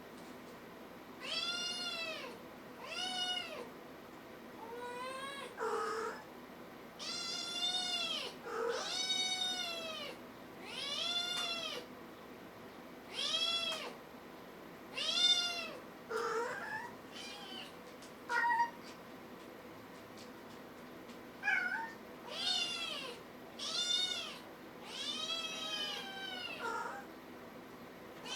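Kitten meowing over and over, about twenty high calls that each rise and fall in pitch, one every second or two, with a short pause past the middle.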